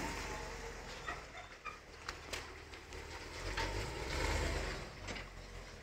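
Low rumble of a vehicle engine running at low revs while reversing, swelling briefly about four seconds in, with a few faint clicks.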